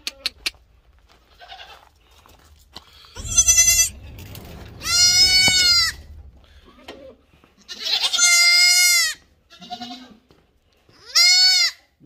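Goats bleating: four loud, high calls of about a second each, spaced a few seconds apart.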